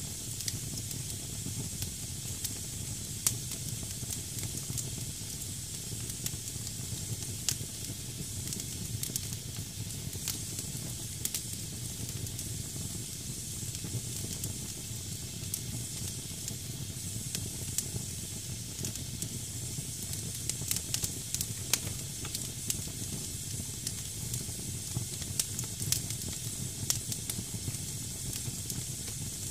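Wood fire burning in a fireplace: damp firewood hissing steadily, with frequent scattered crackles and pops, a few of them sharper and louder.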